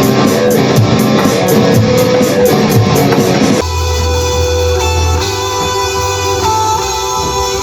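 Rock band playing an instrumental passage on guitars, with drum hits. About three and a half seconds in the full band drops away, leaving held guitar notes over a steady low bass.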